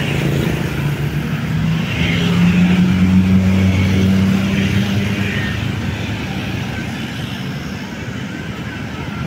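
Tour bus diesel engine running as the bus drives past, with a steady low hum that grows louder about two seconds in and slowly fades after about five seconds.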